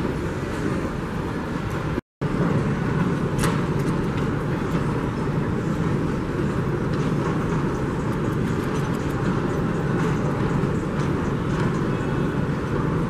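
Steady rumbling ambience of a large airport concourse, with a few faint clicks. It cuts out for a moment about two seconds in, then carries on.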